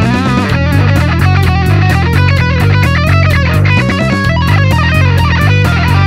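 ESP LTD M-II electric guitar through a Blackstar HT Metal 5 valve amp, playing high-gain distorted metal: a lead line with bends and vibrato over a steady, rhythmic low chugging part.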